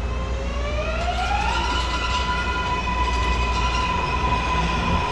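MARTA rapid-transit train pulling away from the platform. Its traction motors' whine rises in pitch over about the first second and a half, then holds steady, over a low rumble.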